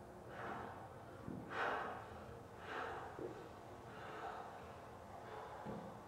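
A man breathing out hard in rhythm with his dumbbell curls: about five effortful exhalations, a little over a second apart.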